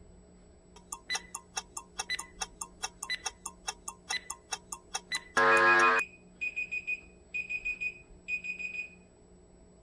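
Workout interval timer counting down the last seconds of a set with fast ticking, about six ticks a second. About five and a half seconds in, a loud buzzer sounds for about half a second to end the interval, followed by three short bursts of rapid beeping.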